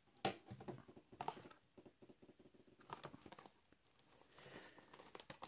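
Faint handling of a shrink-wrapped cardboard trading-card box: light clicks, taps and soft crinkles as fingertips pick at the plastic wrap, with a sharper click about a quarter of a second in.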